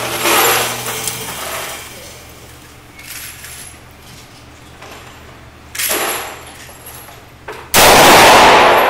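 Gunshots: fainter reports near the start and about six seconds in, then a very loud .357 Magnum snub-nosed revolver shot near the end with a long echoing decay.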